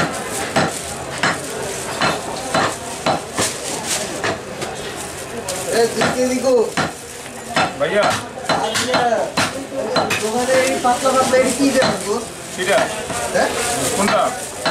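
Butcher's cleaver chopping meat on the bone against a wooden chopping block: a long series of sharp chops at an uneven pace.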